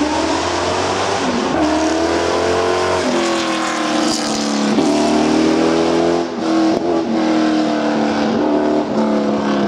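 Lotus Esprit rally car's engine accelerating hard up a hill climb, its pitch climbing in each gear and dropping back at each of several gear changes.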